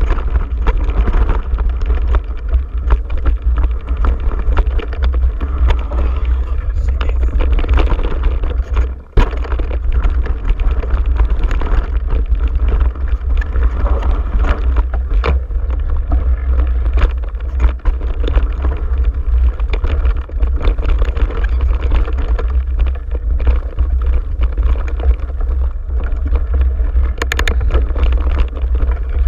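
Mountain bike riding down a dirt singletrack, heard from a camera on the bike: a constant heavy rumble on the microphone with tyre noise on dirt and many quick clicks and rattles from the bike over bumps. There is a brief dip in the noise about nine seconds in.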